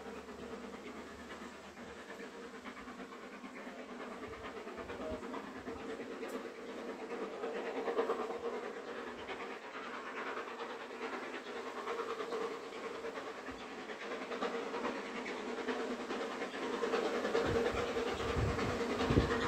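Steam locomotive approaching from a distance, its exhaust chuffing steadily and growing louder as it nears, with a low rumble building near the end.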